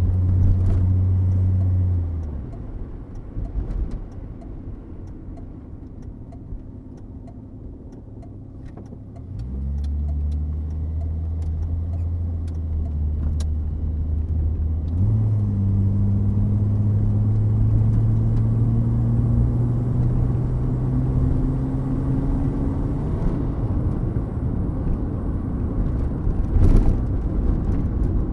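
1979 Mercury Zephyr sedan's engine running. Its note falls away and quietens about two seconds in. Near ten seconds it picks up again, jumps higher in pitch around fifteen seconds and climbs slowly, then gives way to a rougher, noisier sound in the last few seconds, with a brief sharp click near the end.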